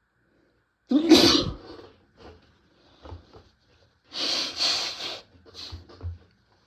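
Hard, wet sneezes induced by tickling the nose with a tissue: a loud sneeze about a second in and a second, longer one about four seconds in, with short sniffs and breaths between and after.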